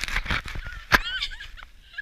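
A sharp knock about a second in, then a woman's short, high-pitched squealing laughter, with scattered clicks and rustling of snow against the camera.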